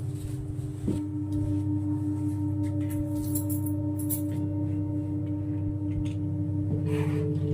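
Singing bowl struck about a second in, then ringing with a long, steady tone and its overtones. A second strike near the end adds another tone that pulses, all over a low steady hum.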